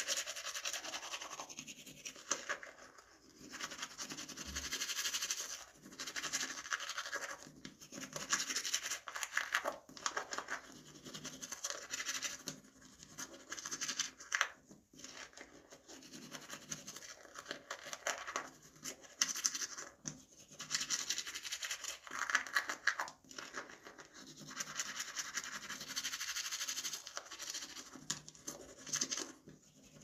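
Toothbrush bristles scrubbing teeth in quick strokes, a scratchy hiss that comes in runs of a few seconds with short breaks between.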